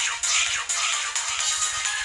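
Tinny electronic ringtone melody from an EVER EV-K100 bar-type mobile phone's 128-chord polyphonic ringtone player, coming from the phone's small speaker. It has a steady beat of about four strokes a second and a falling pitch sweep just at the start.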